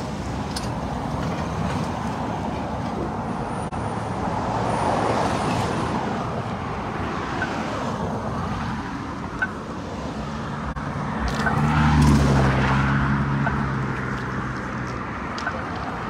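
Road traffic on a busy multi-lane street, cars passing steadily. A louder vehicle with a low engine note goes by about twelve seconds in, then fades.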